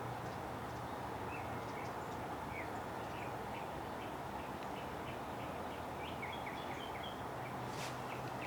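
Small birds chirping, many short high chirps scattered throughout, over steady background hiss and a low hum.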